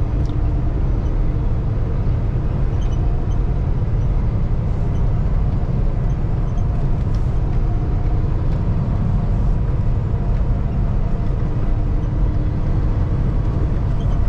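Inside the cab of a 2016 Kenworth T680 semi truck cruising at steady speed: the Paccar MX-13 diesel running evenly under a steady low rumble of road noise.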